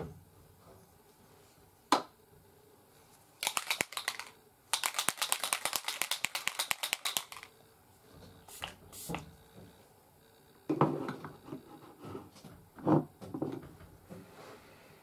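Small makeup items being handled on a table: a sharp click about two seconds in, then a fast run of small clicks lasting about four seconds, then a few soft knocks and rustles.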